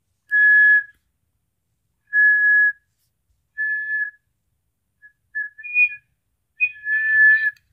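Small bird-shaped toy whistle blown in a series of short, steady toots at one high pitch, each under a second, with a second, higher note joining in on the last toots.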